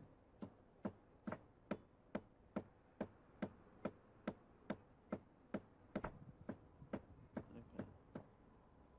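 Light hammer taps on a rolled strip of lead, flattening one side into a wedge, about two taps a second and stopping shortly before the end.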